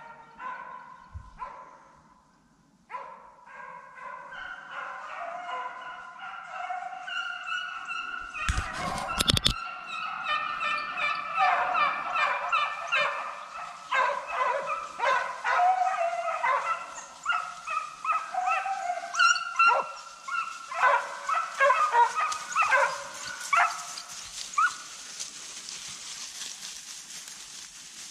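A pack of deer hounds baying in full cry, with many overlapping bays and yelps that start a few seconds in and grow louder as the dogs come closer. A loud rustling knock about nine seconds in.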